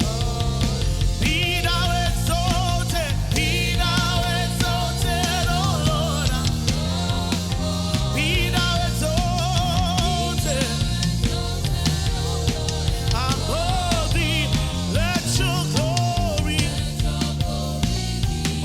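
Live gospel worship music: a band with drums and bass playing steadily while a voice sings long, wavering notes with vibrato.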